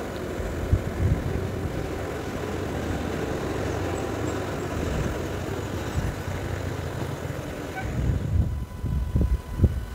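Distant bus engine climbing a steep hairpin road, heard from above as a steady noisy drone, giving way near the end to irregular low thumps.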